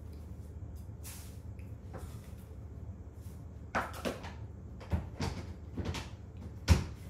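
Light knocks and taps on plastic booster-seat trays, a cluster of them in the second half, the loudest one near the end, over a steady low hum.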